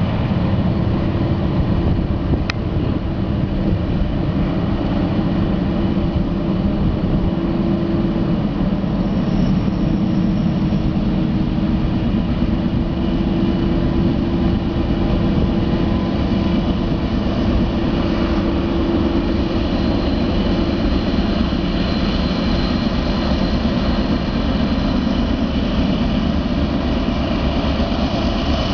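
Diesel locomotives hauling a loaded steel-billet gondola train up a steep grade, their engines working hard at heavy load in a steady, deep drone.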